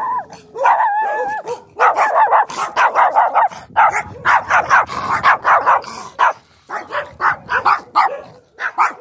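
Two small dogs on leashes barking: a drawn-out whining note about a second in, then a fast run of repeated yappy barks, several a second. The trainer reads it as insecure dogs declaring themselves aggressive, using aggression as a resource.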